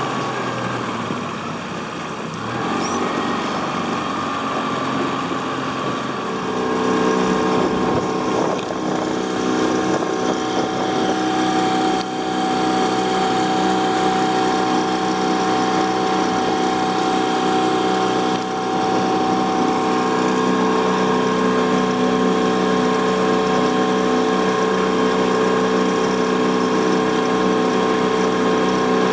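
Small tiller-steered outboard motor running as it pushes a small aluminium boat across the lake, with wind and water noise. About six seconds in it grows louder and settles into a steady drone.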